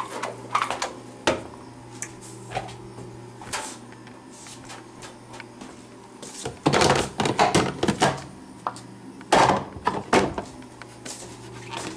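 Knocks and clatter of objects being handled, with two longer spells of rattling, one about halfway through and one near two-thirds of the way, over a steady low hum.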